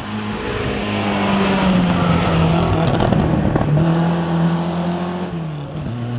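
Renault 5 Alpine rally car's four-cylinder engine running hard as the car drives past at speed. It is loudest about halfway through, then fades as the car pulls away.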